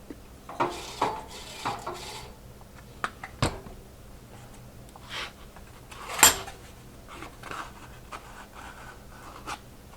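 Metal tools and parts being handled on a workbench: scattered clicks, scrapes and rubbing, with a sharp metallic clink about six seconds in. No drill is running.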